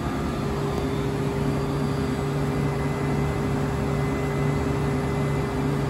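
GMTK Accuracer HR1200 five-axis turn-mill running with flood coolant spraying over a long bar in its steady rests: a steady hum under a continuous hiss.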